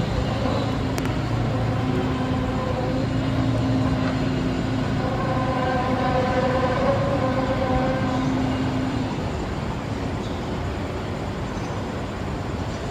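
A long, low, droning hum made of several steady tones over a rumbling background, fading out about nine seconds in while the rumble continues: the kind of eerie sound recorded as a 'strange sound in the sky'.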